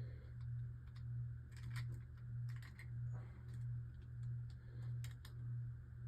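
Scattered light clicks of small plastic Beyblade parts being handled, over a low steady hum that swells and fades about every two-thirds of a second.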